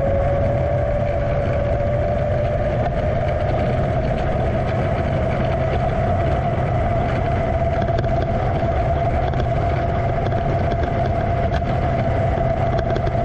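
Electric motors and propellers of a small FPV racing quadcopter carrying the camera: a steady whine that rises slowly in pitch, over wind rumble on the microphone.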